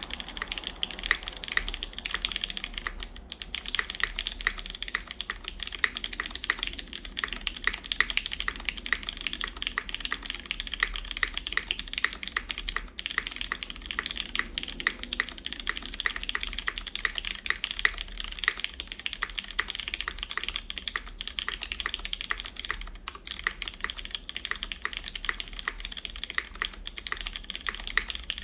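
Steady, fast typing on a CannonKeys Blaine v2 SE mechanical keyboard: lubed Cherry MX Brown switches under GMK keycaps on a full aluminum plate, in single-side gasket mount. Many keystrokes a second, with a couple of very brief pauses.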